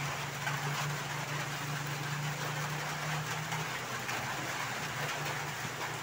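Steady low hum with an even hiss behind it, with no distinct clicks or knocks; the hum thins a little near the middle.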